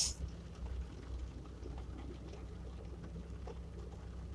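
Faint steady low hum, room tone, with a brief hiss at the very start.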